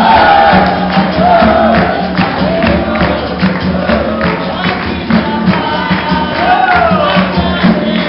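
Capoeira roda music: voices singing over a quick steady beat of pandeiro and other percussion, with a steady low tone underneath.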